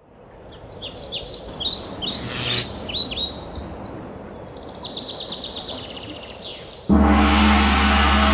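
Songbirds chirping and trilling with short, quick calls. About seven seconds in, a gong is struck once and rings on with a deep, sustained hum, louder than the birds.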